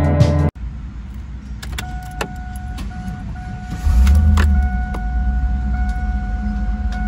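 A steady electronic warning chime tone sounds with a few sharp clicks. About four seconds in, the Camaro's LS1 5.7-litre V8 cranks and fires with a brief loud surge, then settles into a steady low idle while the chime continues.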